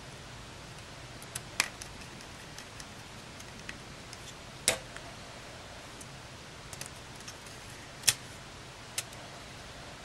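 Scattered sharp clicks and taps of a partly disassembled compact camera's plastic and metal body being handled and turned, four louder ones among several faint ones, over a low steady hum.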